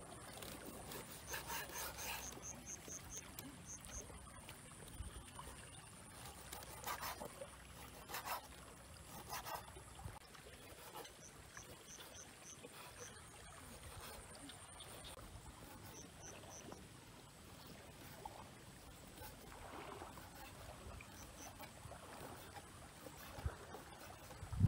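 Kitchen knife slicing raw beef on a wooden cutting board: faint, scattered knocks of the blade against the board over a quiet outdoor background, with short runs of quick high chirps now and then.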